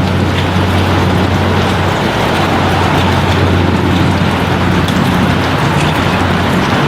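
Four Rolls-Royce AE 2100D3 turboprops of a C-130J-30 Super Hercules running at climb power, heard from inside the aircraft as a loud, steady propeller drone with a low hum under a constant rushing noise.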